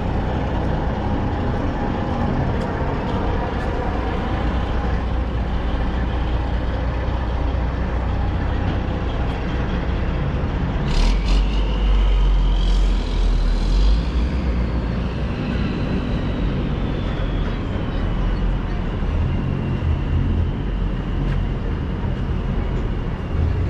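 City street traffic, with cars and trucks passing in a steady low rumble. About halfway through comes a brief sharp hiss, then a high whine that rises a little and slowly falls away.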